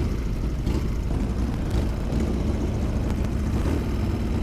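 Harley-Davidson Sportster V-twin motorcycle engine running steadily, with a few faint sharp crackles.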